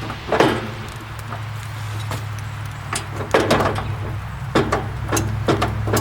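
Irregular metal clanks and clicks of a wrench working the wheel-adjustment bolts on a bandsaw sawmill, loosening them to free the blade wheel, over a steady low hum.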